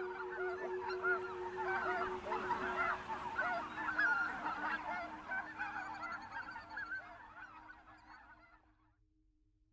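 A large flock of geese honking and calling, many short calls overlapping in a dense chorus that fades out near the end.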